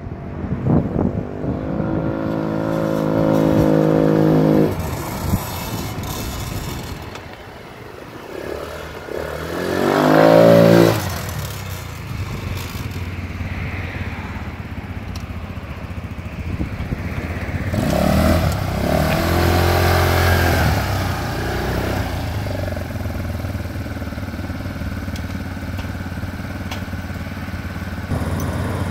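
200cc four-stroke sport ATV engine revving as the quad is ridden: it speeds up and eases off three times, loudest about ten seconds in. It then settles into a steady low run.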